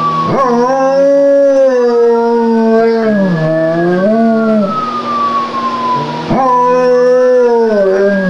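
German Shepherd howling in two long, drawn-out howls, the second starting about six seconds in, with a slow rising-and-falling wail running behind them.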